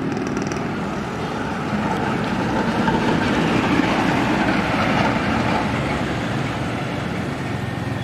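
Rosalia Indah intercity coach's diesel engine and tyres passing close by without stopping. The sound swells to its loudest about three to five seconds in and then fades as the bus goes on down the road.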